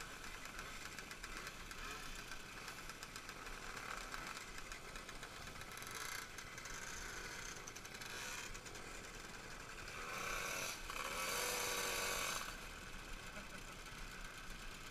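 Two-stroke moped engines idling around a crowd of riders, with voices chattering. About ten seconds in the sound grows louder for two seconds or so, with a short rise in pitch, as an engine is revved.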